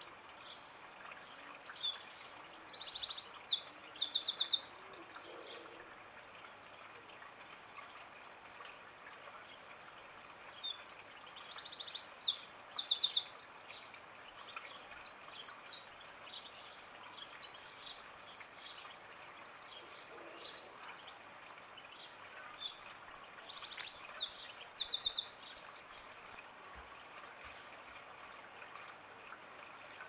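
Small garden songbirds singing: repeated short phrases of fast, high trills over a faint steady hiss. The song pauses for a few seconds after the first phrases and stops near the end.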